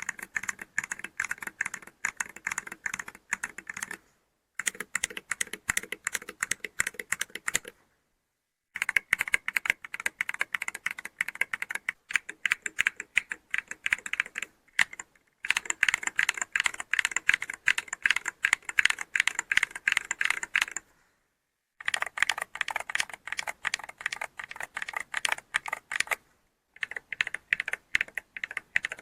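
Typing on a 68-key all-aluminium gaming keyboard with magnetic switches: a sound test of several different switches in turn. Rapid key clicks come in six runs of a few seconds each, separated by short silences.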